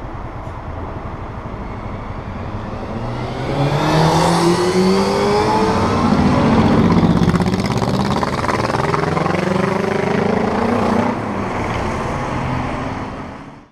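A city bus's engine accelerating close alongside as it pulls away, its pitch rising in steps through the gears, over street traffic. It cuts off suddenly at the end.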